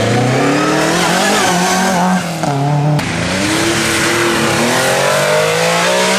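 Historic rally car engines under hard acceleration. One car's revs climb and break off about two seconds in. After an abrupt cut, a second car's engine revs rise steadily as it powers round a hairpin.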